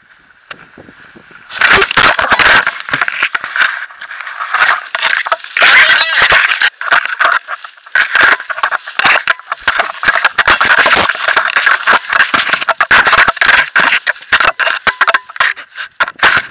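Clothing and harness fabric rubbing and scraping over the harness-mounted camera's microphone, a loud, dense, irregular crackle that starts suddenly about a second and a half in as the paraglider pilot lands under the reserve parachute and moves about on the ground.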